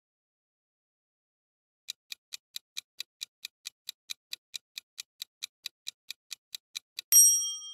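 Quiz countdown timer sound effect: a clock ticking at about four to five ticks a second, starting about two seconds in, then near the end a bright bell-like ding as the time runs out.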